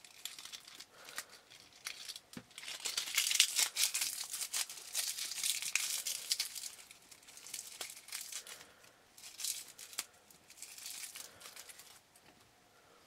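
Dry leaf litter being crumpled and crushed between the fingers: a dense crackling that is loudest a few seconds in, then thins to scattered crackles and fades near the end.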